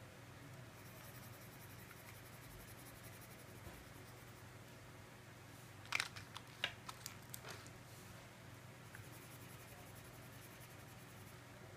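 Quiet room with a steady low hum. About six seconds in, a quick run of sharp clicks and taps as wax crayons knock against their plastic tray while one is picked out.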